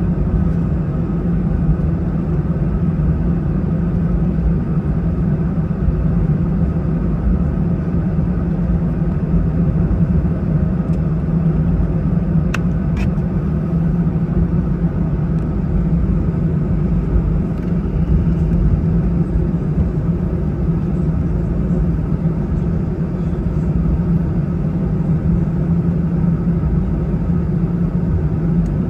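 Steady low rumble and hum inside the cabin of an Airbus A319 on the ground before takeoff. Two light clicks come about midway.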